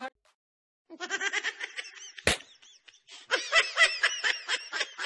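Laughter in quick, high-pitched ha-ha pulses, with a single sharp hit about two seconds in.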